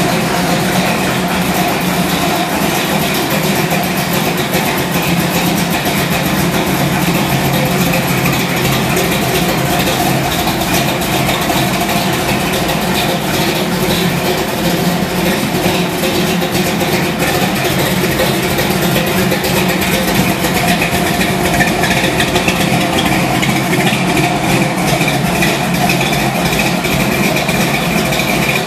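A 1984 Oldsmobile Cutlass's 355 cubic-inch small-block V8 idling steadily, with an even, fast exhaust pulse. It gets a little louder in the last several seconds.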